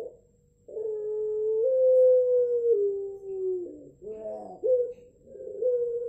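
Barbary dove (puter) cooing: long drawn-out coos of about three seconds each, held at one pitch with small steps up and down, with a short warbling break between them a little past halfway.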